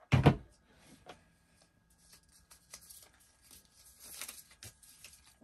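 A sharp knock as the advent calendar is handled just at the start, then soft, scattered paper rustling as a small folded paper slip is unfolded by hand.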